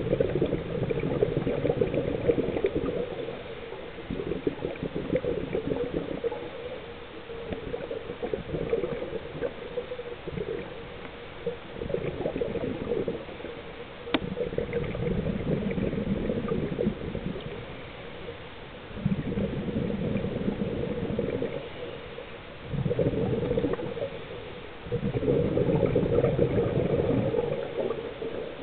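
Underwater: a diver's exhaled bubbles gurgling in repeated bursts a few seconds apart, each lasting one to three seconds, with quieter stretches between breaths.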